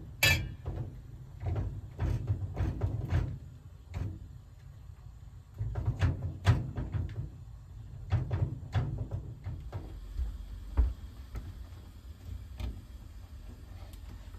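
Footsteps thudding on a wooden floor, and knocks and clinks of an aluminium pot, its lid and a ladle being handled on a cast-iron wood-burning stove. A sharp metallic clink comes right at the start.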